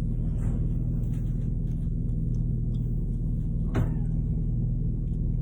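Steady low hum of room machinery, with a single short sharp sound about four seconds in.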